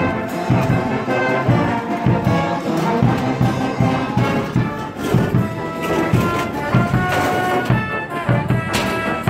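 Brass band music playing, held notes over a steady beat.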